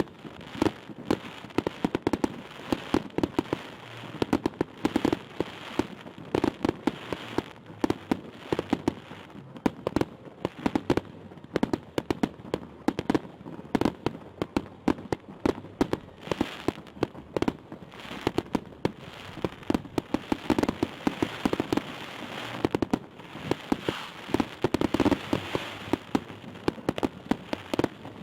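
Fireworks salute bursting: a dense, unbroken run of bangs and crackles, several a second.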